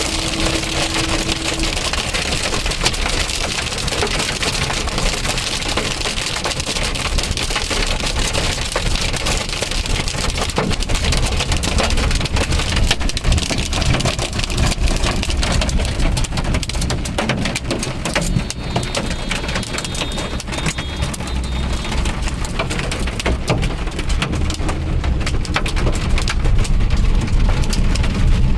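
Hailstones pelting a Maruti Wagon R car in a dense, continuous patter of small hits, over the low rumble of the moving car.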